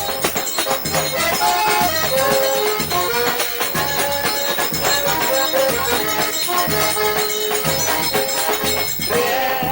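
Forró pé de serra music: an accordion (sanfona) plays a melody of held notes over a repeating bass line and a steady percussion beat.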